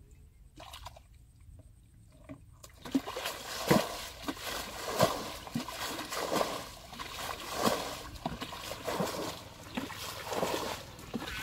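Water being bailed out of a shallow muddy pond with a bucket: repeated splashing and sloshing as each bucketful is scooped and poured out, about one every second or so, starting a few seconds in.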